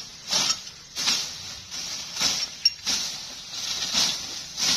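A machete slashing and raking through dry grass and weeds: rustling, swishing strokes about once a second, with one sharp clink about halfway through.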